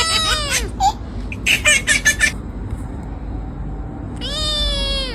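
A pet cat meowing as it is touched: an arching meow at the start, a quick run of short calls around one and a half to two seconds in, and a longer, level meow near the end.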